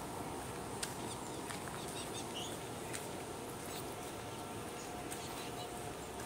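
Steady background hiss with faint, scattered bird chirps and a few sharp clicks.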